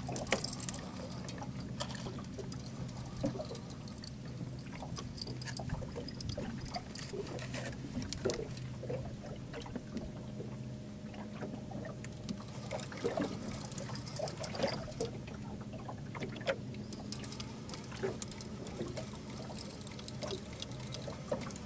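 Water lapping and trickling against an aluminum boat hull, with irregular small clicks and splashes and a steady low hum underneath.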